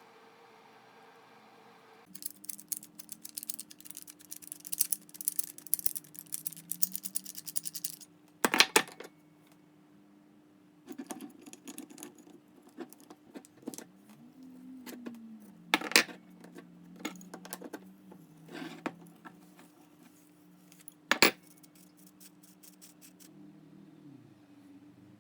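Old steel pipe wrench handled on a hard surface: rapid metal clinking and scraping, with a few sharper clanks, the loudest about 8, 16 and 21 seconds in.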